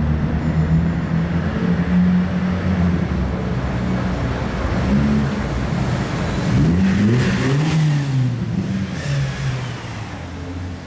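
Off-road vehicle's engine running under load, its revs rising and falling between about six and eight seconds in, with a rushing hiss over the revs at that point.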